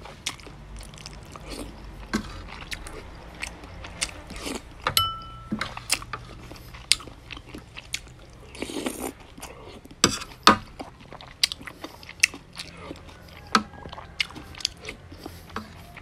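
Eating noodle soup: a metal spoon clicks again and again against the ceramic plate and bowl, with one ringing strike about five seconds in. Around eight to nine seconds in comes a long slurp of noodles, with chewing between.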